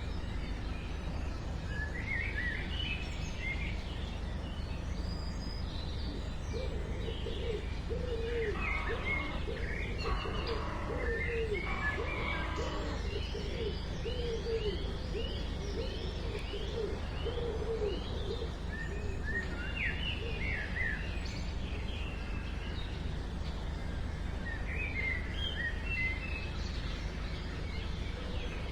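Outdoor ambience of several birds chirping over a steady low rumble, with a run of quick, lower repeated calls for about ten seconds in the middle.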